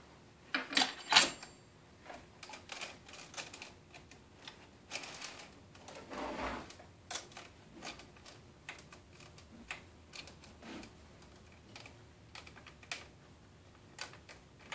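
Steel saw chain clicking and clinking as it is handled and fed around a chainsaw bar: irregular light clicks, a few louder ones about a second in, with a brief rustle midway.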